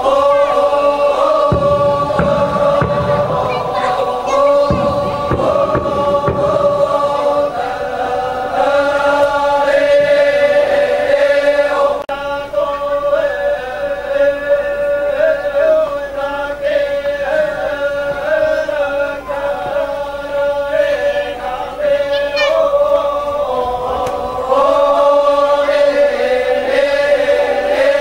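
A group of voices chanting together in long held notes, a Toraja funeral chant. Low rumbling on the microphone runs under it for the first several seconds.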